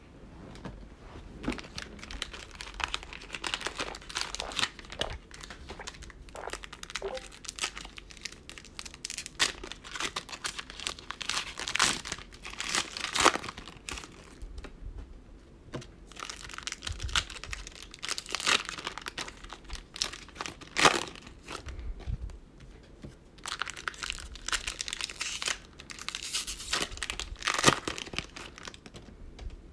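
Plastic and foil wrappers of 2020 Mosaic football card cello packs crinkling and tearing as they are ripped open and handled by hand: irregular crackling throughout, with several louder bursts of tearing.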